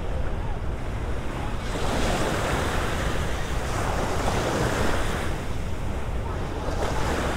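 Small shore waves washing up over the sand and sliding back, one wash swelling about two seconds in and fading after five seconds, another starting near the end. A steady low wind rumble on the microphone runs underneath.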